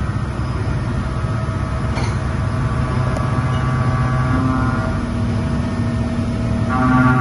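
Mazak FH-4800 horizontal machining centre running with flood coolant spraying over the cut: a steady machine hum with several high, steady whining tones. The whine grows a little louder shortly before the end.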